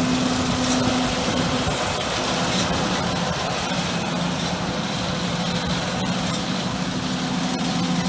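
Heavy diesel farm machinery running steadily, a droning engine hum; its pitch falls away about a second in and a lower hum builds again over the last few seconds.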